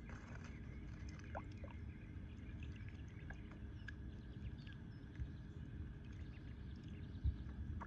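Domestic ducklings dabbling their bills in shallow muddy water: faint small splashes and wet clicks, with two short chirps about a second and a half in. A low rumble runs underneath, and a single thump near the end is the loudest sound.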